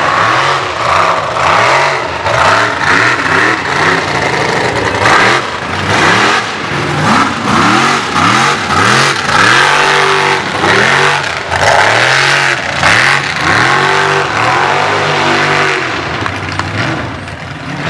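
Mud-bog buggy's engine revving hard, its pitch rising and falling over and over as the driver works the throttle through the mud pit, under a broad rushing noise.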